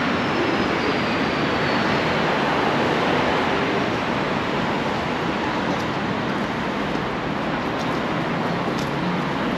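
Steady city traffic noise: an even hiss with a low engine hum underneath.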